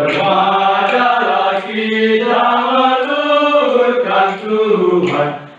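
Group of men singing an Indonesian hymn together in unison, with long held notes. The singing thins briefly about two seconds in and fades out just before the end.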